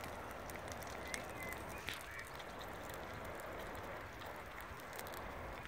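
Outdoor ambience: steady low background noise with a few faint, short bird calls about one and two seconds in, and scattered light clicks.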